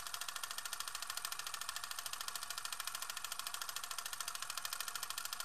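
Vintage film projector running, as a sound effect: a steady, rapid mechanical clatter of about ten clicks a second.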